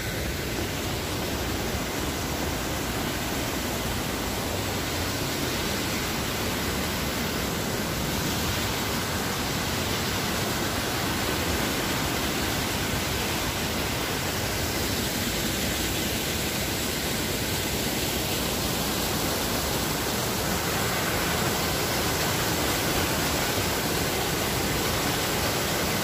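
Rhine Falls: a steady, unbroken rush of falling and churning water heard close up.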